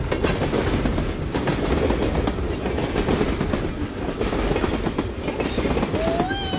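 Train running on rails: a steady rumble with a fast clatter of wheels on track. Near the end a train whistle starts, rising briefly, then sliding slowly downward.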